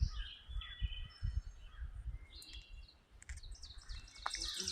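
Wild songbirds calling: scattered short high chirps, then from about three and a half seconds a fast run of repeated high notes, about five a second. Low muffled thumps sound underneath.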